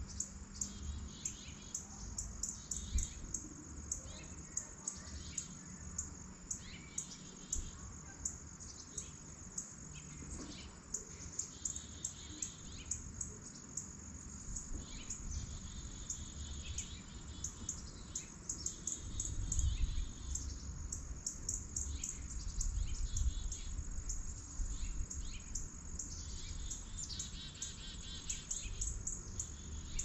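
Small songbirds chirping over and over in short, quick high notes. A low rumble swells for a few seconds around twenty seconds in.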